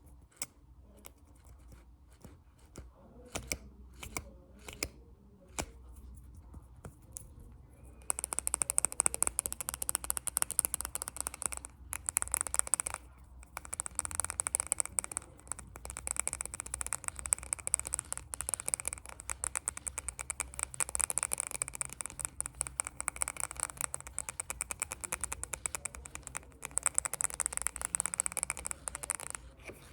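Fast ASMR tapping: a few scattered single taps, then from about eight seconds in a dense, rapid rattle of crisp taps that pauses briefly a few times.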